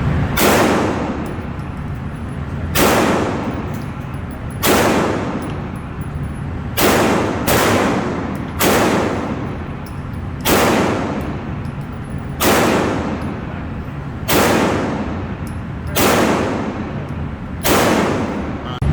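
Glock 9mm pistol fired slowly, about eleven single shots roughly two seconds apart, each with a ringing tail, over a steady low rumble.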